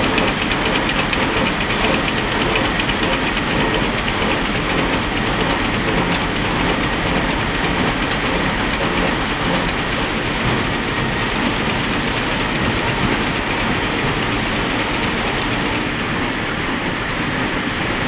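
Steam-powered sawmill machinery running steadily: a dense mechanical clatter with hiss. The higher rattle thins out about halfway through.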